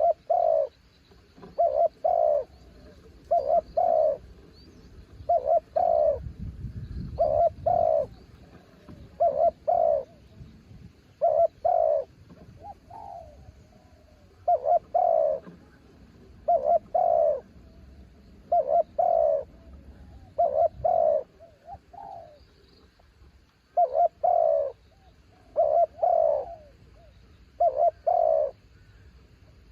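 Spotted dove cooing, short groups of two or three coos repeated about every two seconds. A low rumble of wind is on the microphone briefly, a quarter of the way in.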